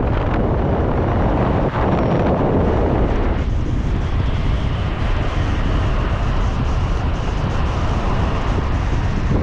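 Rumble of a moving vehicle with steady wind buffeting the microphone.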